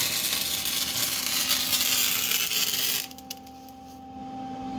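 Electric welding arc crackling steadily as a weld bead is laid on steel subframe connectors, stopping abruptly about three seconds in; a faint steady hum remains after.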